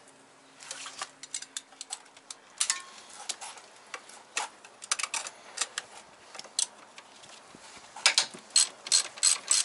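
Irregular sharp metallic clicks and taps from a socket wrench on a long extension being worked on the front crossmember bolts, with a quicker run of ringing clicks near the end.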